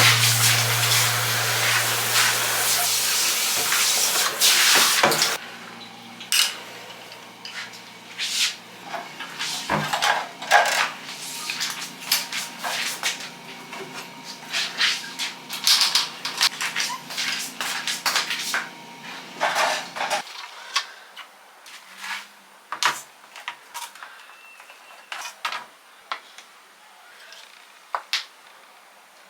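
A loud, steady hiss for the first five seconds or so, then a long run of separate clicks, clinks and clatters of hard objects being handled and set down. The clatters thin out after about 20 seconds.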